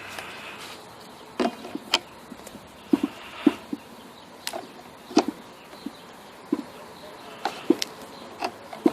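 Irregular clicks and knocks of parts and tools being handled while a car-wash pressure pump is reassembled and tightened, about a dozen sharp taps spread unevenly.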